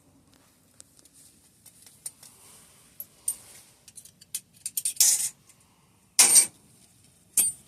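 Small metal brake parts and hand tools being handled on a bench: scattered light clicks and clinks, with brief louder rattles about five and six seconds in and another near the end.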